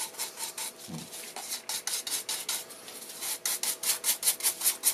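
Repeated scratchy rubbing strokes as black raw urushi lacquer, mixed with soot, is worked into a bare wooden bowl for the first, wood-sealing coat. The strokes quicken and grow louder in the second half, about five a second.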